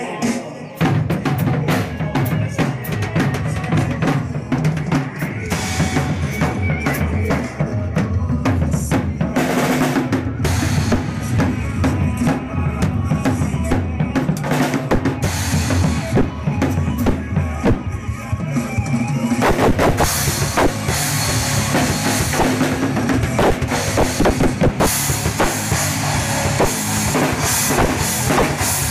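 Drum kit played in a busy passage of fast strikes on bass drum, snare and toms. From about two-thirds of the way through, cymbals crash and ring much more.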